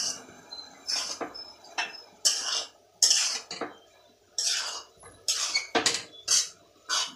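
Metal spatula scraping and clinking against a metal kadhai while stirring a thick mixture of chopped vegetables in sauce: an irregular run of short strokes, about two a second.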